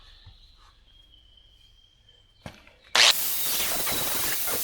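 Angle grinder with an aluminum flap disc grinding down a weld on an aluminum wheel rim. It starts abruptly about three seconds in, after a quiet stretch, as a loud, steady grinding noise.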